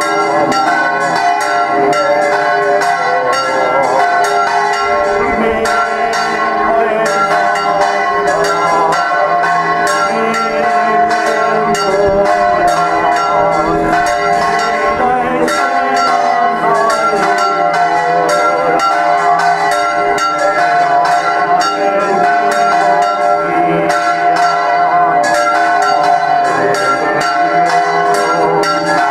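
Church bells ringing in a continuous rapid peal, one strike after another, with a steady mix of ringing tones. Voices are heard faintly beneath.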